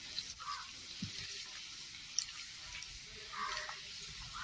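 Finely chopped ginger frying in hot sunflower oil in a nonstick kadai: a steady sizzle, with a wooden spatula stirring and a light knock about a second in.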